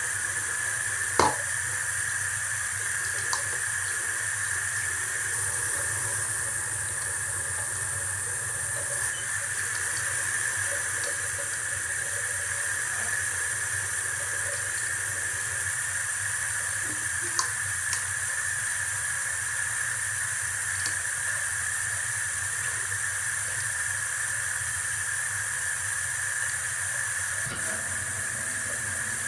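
Water running steadily from a tap into a sink, with a few small knocks, the loudest about a second in.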